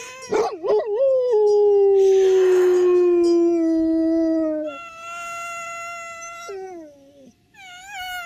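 A dog howling along with a grass-blade whistle blown between the thumbs. A long howl slowly falls in pitch, then a higher, steadier tone drops away, and wavering tones come near the end.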